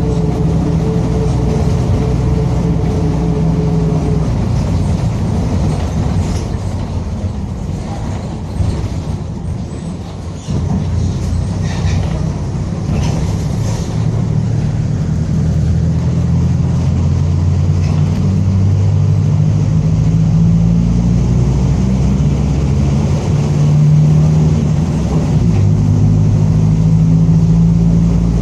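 Mercedes-Benz OF-1722M city bus under way, its four-cylinder diesel engine running with the pitch stepping and shifting, easing off for a moment before pulling hard again just after ten seconds in. A steady tone from the differential growls over the engine note.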